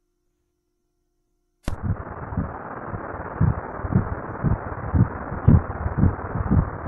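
Fetal heartbeat on an obstetric Doppler ultrasound: a whooshing hiss with regular low thumps about two a second, starting abruptly about two seconds in.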